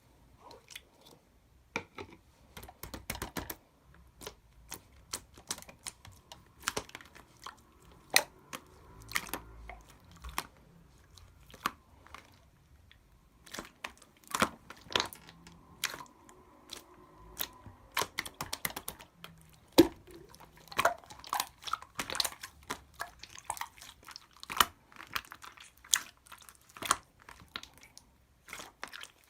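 Clear slime being pressed, stretched and poked by hand, giving many sharp, irregular clicks and pops as air pockets in it burst.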